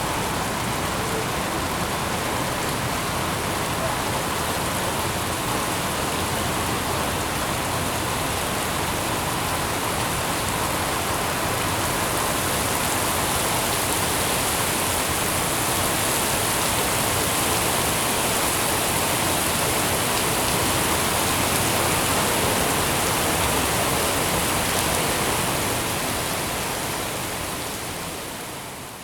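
Steady rain falling, an even dense hiss, fading out near the end.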